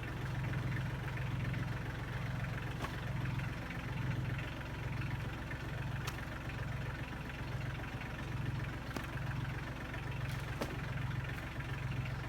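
Engine running steadily at a low, pulsing hum, with a few faint sharp knocks scattered through.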